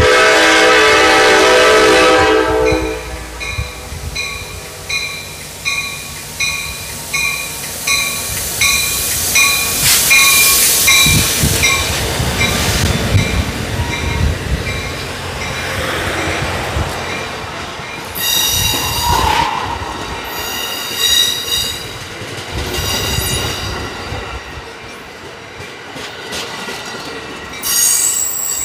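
Capitol Corridor passenger train arriving: the locomotive's horn sounds one loud blast of about three seconds. Its bell then rings in a steady rhythm, about three strokes every two seconds, as the train rolls in. Later come several high-pitched squeals from the wheels and brakes as it slows.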